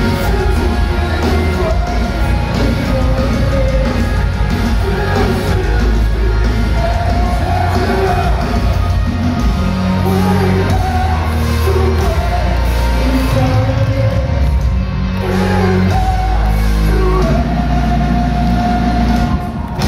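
Metalcore band playing live in a large hall, heard from the crowd: heavy guitars, bass and drums with sung and shouted vocals. The level drops briefly just before the end.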